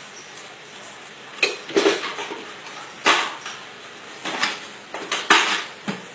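Metal and plastic clanking and knocking as macaws handle a metal can and a small lidded bin: a string of irregular sharp clanks, the loudest about three seconds in and again about five seconds in.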